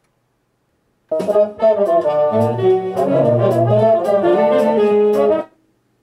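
A short sample of recorded music played through a hi-fi amplifier and loudspeaker, starting about a second in and cut off abruptly about four seconds later.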